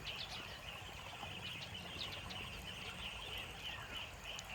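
Dawn chorus: many birds calling at once, a steady dense mix of high chirps with a few short falling whistles.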